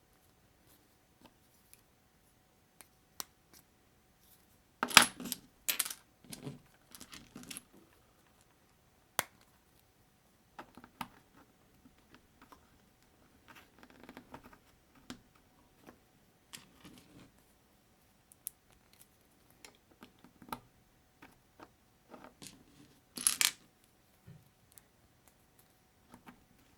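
Small plastic building bricks clicking and clattering as they are handled and pressed together, in scattered light clicks with two louder clatters, about five seconds in and near the end.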